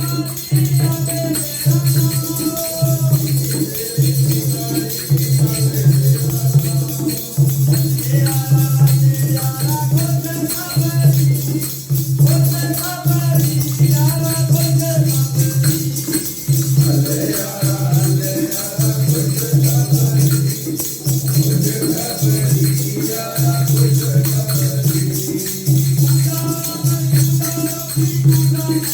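Devotional Sikh music: a low drone pulsing in a steady rhythm under a wandering melody, with jingling percussion throughout.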